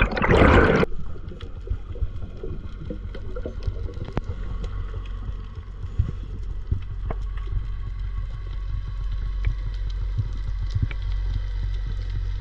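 Underwater sound picked up by a dive camera: a brief loud rush of water or bubbles at the start, then a steady low rumble with scattered faint clicks.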